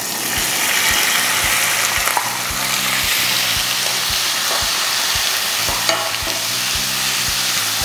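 Sliced pork liver sizzling in hot cooking oil in a nonstick pan as it is tipped in, then stirred with a wooden spoon: a steady frying hiss that swells just after the start and holds.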